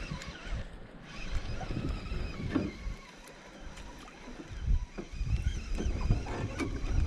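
Water lapping and knocking against a small fishing boat's hull: an uneven low rumble that dips quieter midway, with a few light clicks.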